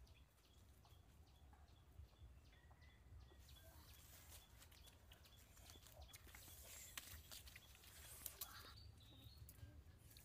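Faint footsteps on a dry dirt path: light crackling and rustling of dry leaves and brush under bare feet, growing busier after the first few seconds. Early on, a faint high tick repeats about three times a second.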